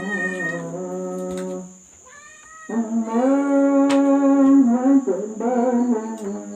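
Background music: a slow melody of long, wavering held notes that drops away briefly about two seconds in and returns louder.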